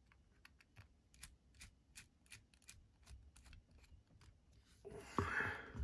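Faint, quick clicking, about five clicks a second, as a small precision screwdriver turns spacer screws back into the aluminium handle of a Fox Suru folding knife. Near the end, a louder burst of handling noise with a knock.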